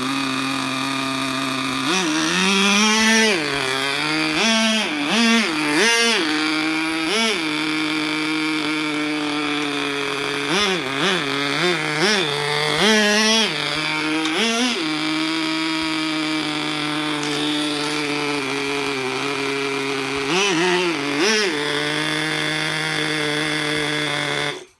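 Small Kyosho GS11X nitro engine of a 1/4-scale RC go-kart running at a steady buzzing idle, revved up and back down in repeated throttle blips, then cut off suddenly near the end.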